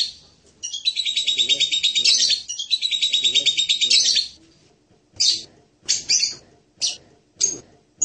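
Blue-crowned hanging parrot (serindit) calling: a fast, even string of high, shrill twittering notes for about three and a half seconds, then a run of single short, sharp chirps spaced less than a second apart.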